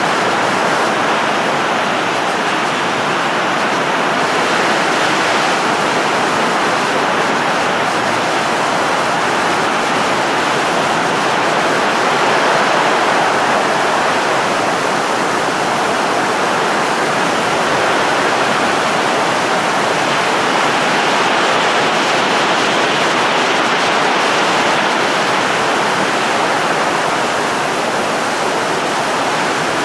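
Steady blowing, rushing air noise, even and unbroken with no pitch or rhythm.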